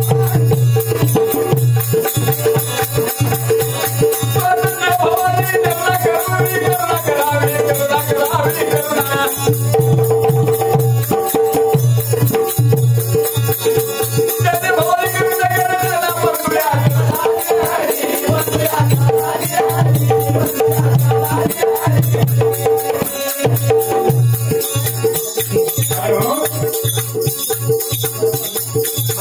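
Marathi shahiri folk song: a man singing long, bending phrases over a steady drone, with fast jingling percussion and drum.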